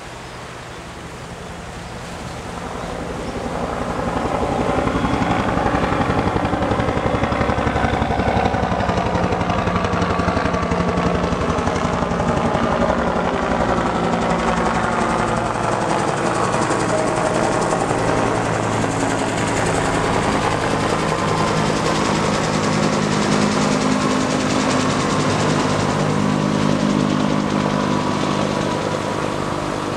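Helicopter flying low overhead, its rotor beating rapidly. It grows loud over the first few seconds and stays loud, easing slightly near the end.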